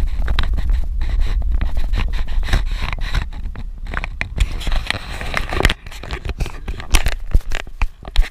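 Small 4x4 driving on a dirt road: a steady low rumble with dense crackling and scraping of gravel and loose parts. The rumble drops away about six seconds in, leaving scattered clicks.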